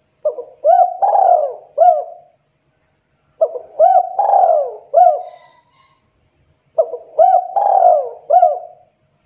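Spotted dove cooing: three phrases, each of about four short, bending coo notes, with a pause of about a second between phrases.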